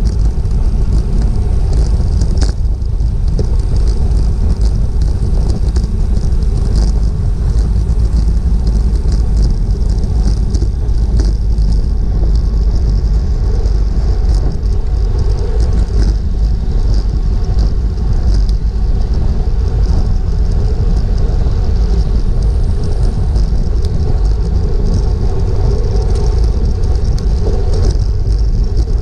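Loud, steady wind rush over a bicycle-mounted action camera's microphone, riding at race speed in a pack of road bikes.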